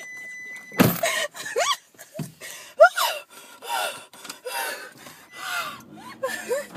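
A woman's frightened gasps and short high squeals in quick succession, with heavy breathing between them. A loud thump comes about a second in.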